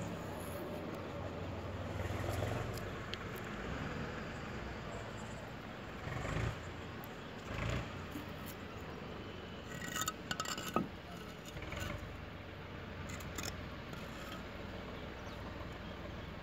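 Hands handling a coconut with firecrackers taped to it and setting it between bricks on a concrete floor: scattered scrapes, taps and a few short knocks, the densest cluster about two-thirds of the way in, over a steady background noise.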